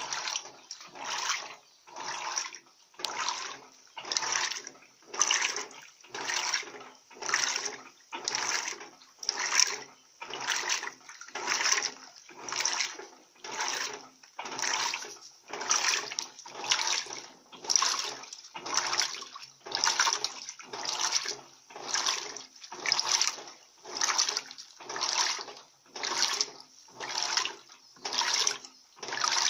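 Electrolux Turbo Economia 15 kg top-loading washing machine agitating a load of towels in water. It makes a rhythmic swish of churning water about once a second as the agitator drives back and forth.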